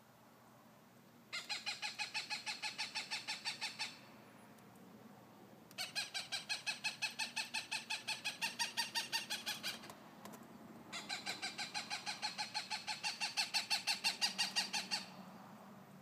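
Hawk calling in three long series of rapid, evenly repeated harsh notes, about six a second, with short pauses between the series.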